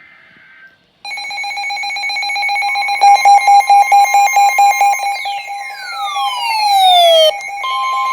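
Electronic emergency alert tones for a severe thunderstorm warning. A shrill multi-tone alarm starts about a second in and turns into rapid beeping, with whistles sweeping downward in pitch over it. Near the end it switches to a steady two-tone attention signal.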